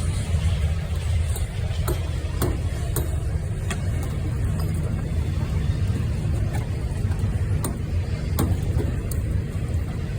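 1922 Keck-Gonnerman 18 hp steam traction engine running with a steady low rumble, and sharp clanks and clicks at irregular intervals.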